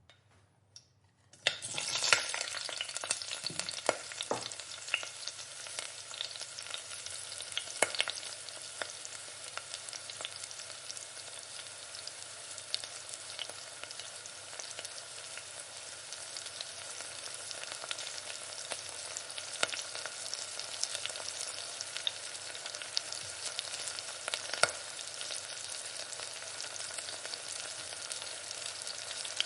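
Food frying in a pan: the sizzle starts suddenly about a second and a half in with a burst of loud crackling, then settles into a steady sizzle with scattered sharp pops.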